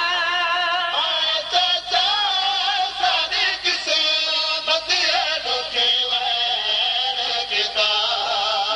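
A man's voice sings a noha, a Shia lament, in long wavering melismatic phrases, amplified through a microphone.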